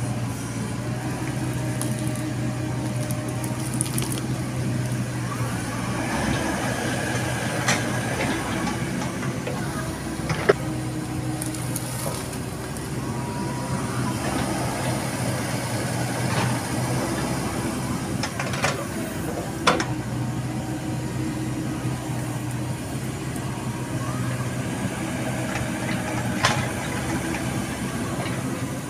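Komatsu PC70 hydraulic excavator's diesel engine running steadily as it digs a ditch, its low drone heavier at the start and over the last ten seconds. A few sharp knocks sound through it.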